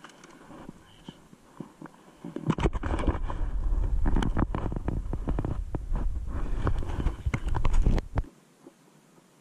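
Close handling noise on the kayak and camera: a low rubbing rumble with many small knocks and clicks while the net and fish are handled, cutting off suddenly about eight seconds in.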